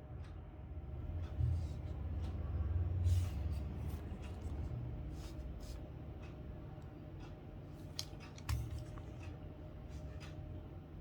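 Scattered small clicks and light scraping from handling and prying apart a plastic Casio fx-991MS scientific calculator, with a sharper run of clicks near the end.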